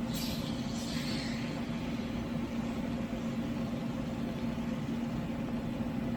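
A steady mechanical hum, like a motor or engine running at a constant speed, with a brief hiss about a second in.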